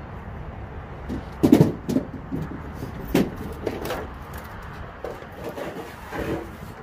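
Knocks and clatter of hollow sign letters and boxes being handled and set down, loudest about a second and a half in, with further knocks near two and three seconds in.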